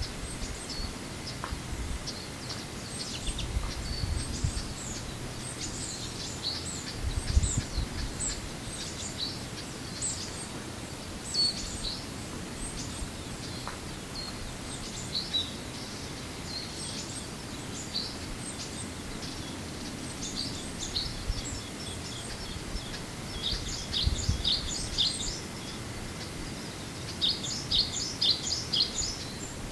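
Japanese white-eye (mejiro) twittering: thin, high-pitched chirps scattered throughout, with quick runs of rapid notes about three-quarters of the way in and again near the end.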